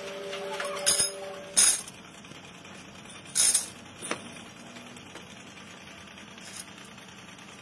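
Steel motorcycle chain sprockets clinking and clanking against one another as they are handled and set down: a few sharp metallic strikes in the first four seconds, the loudest about a second and a half in and again about three and a half seconds in.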